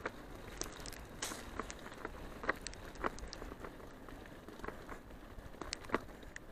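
Bicycle rolling fast over a rough, muddy dirt track: a low rumble from the tyres with irregular clicks and rattles.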